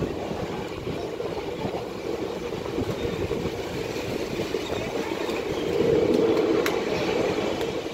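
Passenger train running at speed, heard from an open coach doorway: steady wheel and rail rolling noise, swelling for a second or two about six seconds in.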